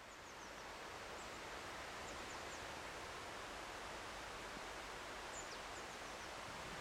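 Quiet rural outdoor ambience: a steady low hiss with faint, high, short bird calls falling in pitch, heard several times.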